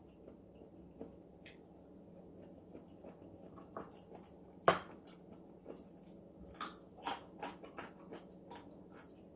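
Close-up chewing of crunchy geoduck clam, scattered crisp clicks and crunches from the bites, the sharpest about halfway through and a run of them a little later.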